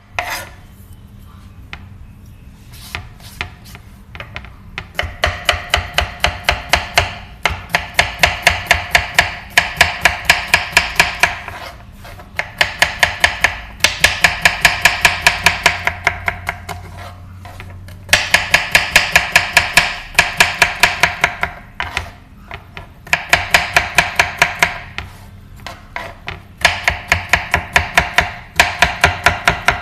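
Chef's knife rapidly chopping green vegetables, bitter gourd among them, on a wooden cutting board. The blade knocks on the board about four or five times a second in runs of several seconds, with short pauses between runs.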